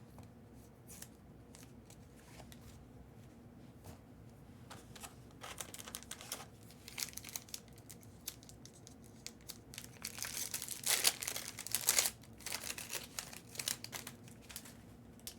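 Foil trading-card pack wrapper crinkling and being torn open, in short crackly spells that start a few seconds in and are loudest in the last third.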